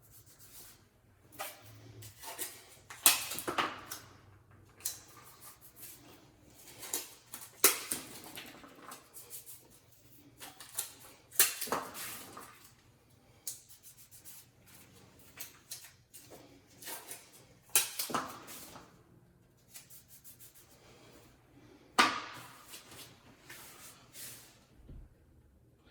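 Intermittent knocks, clicks and short scraping strokes of hand work, with about five louder strokes spread a few seconds apart and quieter handling noise between them.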